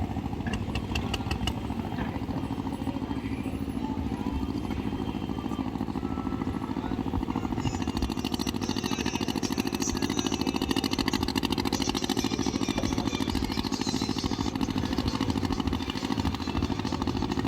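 Motor ferry boat's engine running steadily with a low, even drone. A brighter hiss joins it about eight seconds in.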